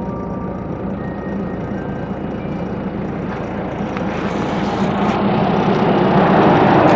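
Engine of a horizontal directional drilling rig running steadily with a constant low hum, growing gradually louder over the last few seconds.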